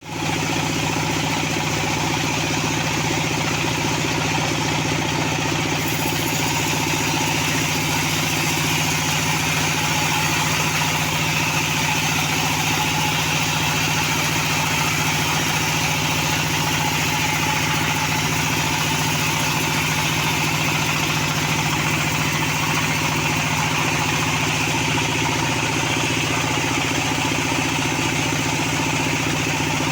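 Engine of a log band sawmill running steadily, with a constant even note and a hiss over it throughout.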